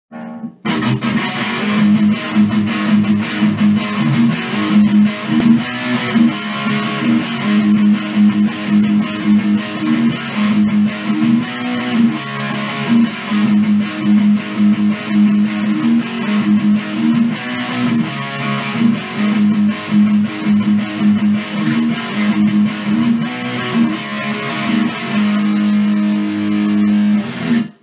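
Guitar-led intro music with a steady beat, ending abruptly.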